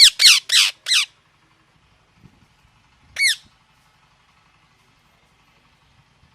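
Ringneck parrot calling: four harsh calls in quick succession in the first second, then a single call about three seconds in.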